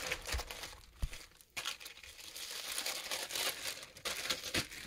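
Clear zip-top plastic bag crinkling and rustling as it is pulled open and handled, with a brief lull about a second in.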